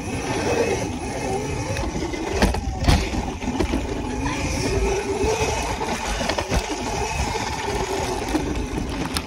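Wind rushing over the microphone and tyres rolling over a dirt track as a bike is ridden fast along it, with a faint wavering whine underneath. Two thumps come about two and a half and three seconds in, from the bike going over bumps.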